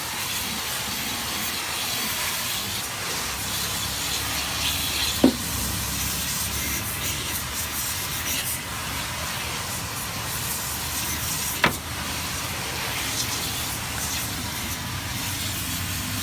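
Water spraying from an electric pressure washer's wand onto a car's wheel well, a steady hiss; the washer's pump motor is switched off, so only garden-hose pressure drives the weak spray. Two brief sharp sounds cut through it, about five seconds in and again near twelve seconds.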